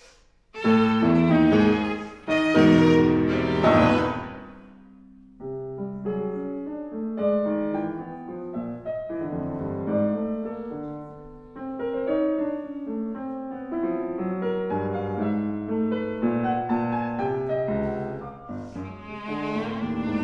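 Viola and piano playing live chamber music: loud struck chords begin about half a second in, then after a brief fall-off a sustained bowed viola line continues over piano from about five seconds.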